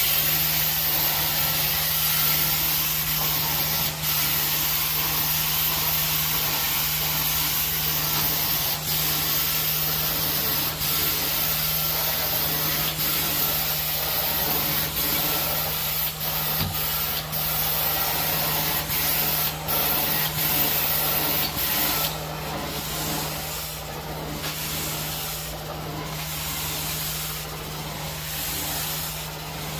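4-jet titanium carpet-cleaning extraction wand spraying and sucking across carpet: a loud, steady rushing hiss over a constant low hum. It turns quieter about 22 seconds in, dipping every couple of seconds.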